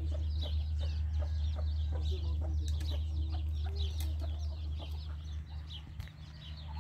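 Chickens clucking, with many quick high chirps throughout, over a steady low hum.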